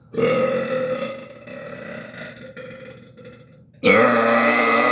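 A man burping loudly on purpose: one long burp of about three seconds that fades away, then a second, louder burp starting near the end.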